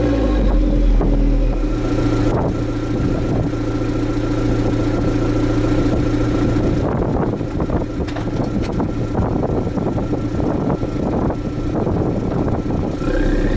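Exhaust note of a 2014 Fiat 500L's 1.4-litre turbocharged four-cylinder engine, heard through its stock muffler. The revs settle back to a steady idle at the start, with a scatter of irregular clicks over the idle in the second half. The revs start to climb again near the end.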